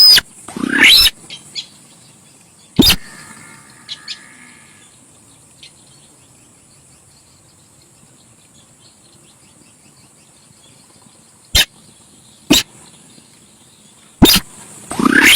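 Sintar sawah bird calls from a lure recording: loud, short, sharp calls in bursts. There is a cluster with a rising squeal in the first second, single calls about three and four seconds in, a long lull, then more calls near the end. A steady high hiss runs underneath.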